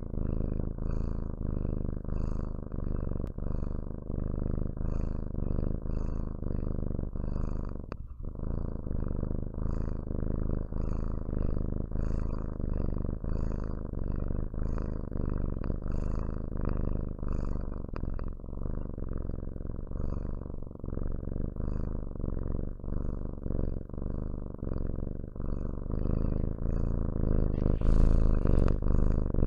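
Kitten purring steadily, very close to the microphone, the purr swelling and fading with each breath about once a second. A louder rustle comes near the end.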